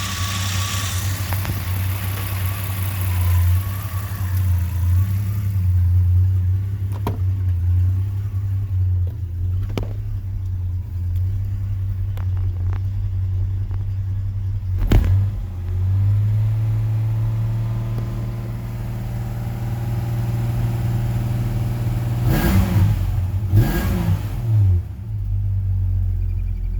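Jeep Comanche's 4.7-litre stroker straight-six idling roughly, its low running note wavering unevenly, with a few sharp clicks. Near the end the engine is briefly revved twice.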